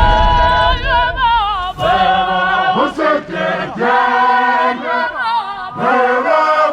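Voices singing together, choir-like, in held notes with vibrato.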